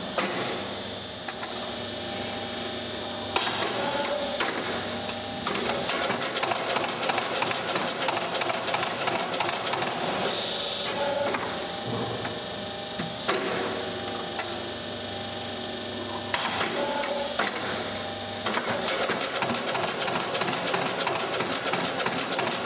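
MSE filter press automatic cake-release system: a hydraulic lifting device jolts the filter plates in rapid strokes, giving a fast mechanical rattling in bursts of several seconds, with a short hiss between bursts. The strokes shake the filter cake loose from the filter cloths, one chamber at a time.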